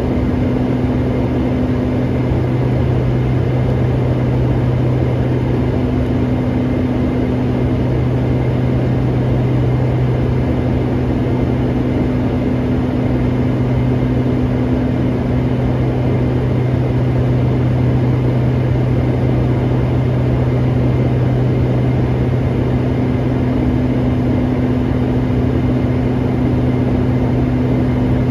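Steady engine drone of a light aircraft, heard from inside the cockpit during the approach descent: a constant low hum over a wash of cabin noise, with a fainter higher tone that comes and goes.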